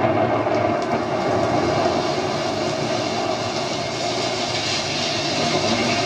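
Steady rushing hiss of a rain sound effect playing from a vinyl record, before any music comes in.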